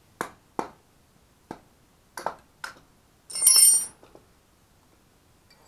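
Hammer tapping a half-inch box-end wrench onto the bolts of a cast-iron Garrett turbo exhaust housing to break them loose: five sharp metal-on-metal taps, then a louder clang about three seconds in that rings for about half a second.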